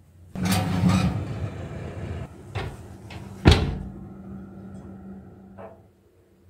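A scraping slide lasting about two seconds, then a few light knocks and one sharp bang about three and a half seconds in: household objects being moved and set down.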